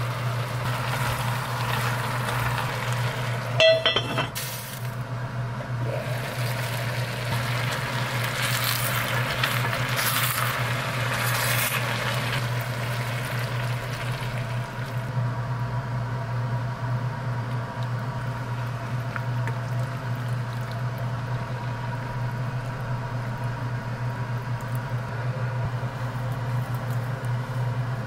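Cooking sounds at a stove pot: a sharp metal clink about four seconds in as the wire strainer knocks the pot, then liquid hissing and pouring into the pot in the first half. A steady low hum sits underneath.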